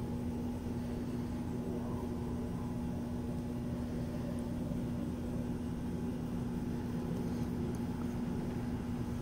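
Steady low mechanical hum with one constant pitched tone running through it.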